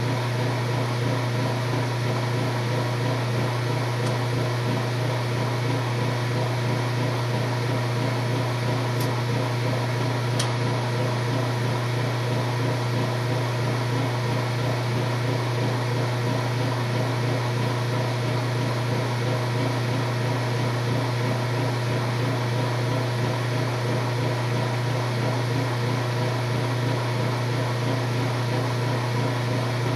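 Washing machine running with a steady, even motor hum.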